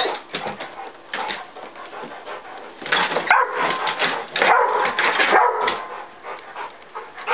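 A pit bull whining and barking in irregular bursts as it chases a light spot in play, loudest about three seconds in and again around four to five seconds.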